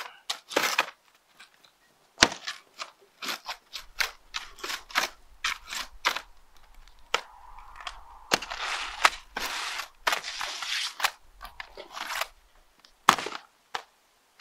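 Utility knife slicing through an asphalt shingle in irregular rasping strokes, with many sharp clicks and snaps as the blade drags and catches.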